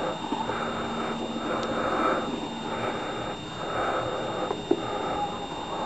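A person breathing heavily close to the microphone, soft breaths coming about once a second.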